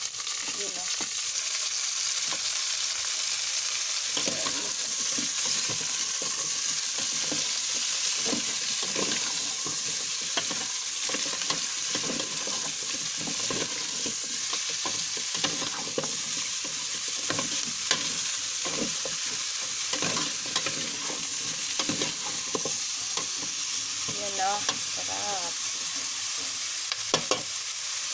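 Raw chicken feet sizzling in hot oil with sautéed garlic and onion in a metal pot, a steady frying hiss, while a metal spatula stirs them with frequent scrapes and knocks against the pot. The feet are being seared before the soy sauce and other adobo ingredients go in.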